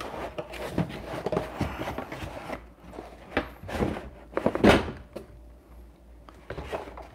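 Molded paper-pulp packaging being pulled out of a cardboard box: scraping and rustling with a few dull knocks, the loudest nearly five seconds in.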